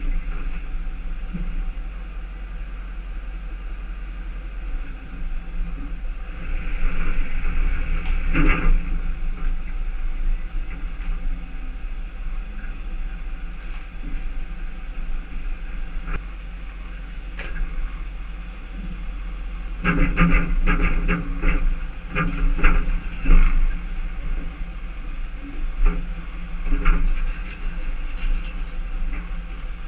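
Tow truck engine running steadily as the truck backs slowly, with louder spells of rattling and clicking about a quarter of the way in and again about two-thirds of the way through.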